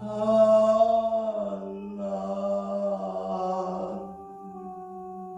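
A man sings a Korean praise hymn slowly, drawing out long held notes over a sustained accompaniment chord. The voice fades out about four seconds in, leaving the chord ringing on its own.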